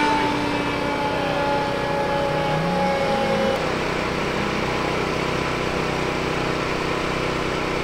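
A car engine running under a steady rushing noise, with a pitched whine that slowly falls and stops about three and a half seconds in.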